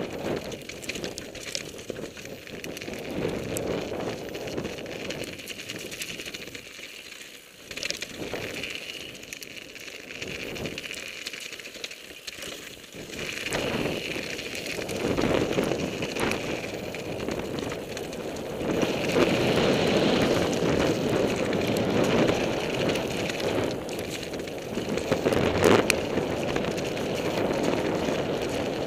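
Mountain bike descending a rough, wet trail at speed: tyres rolling and crunching over gravel and rock, with many short rattling knocks from the bike and wind rushing over the microphone. It grows louder about halfway through as the pace picks up.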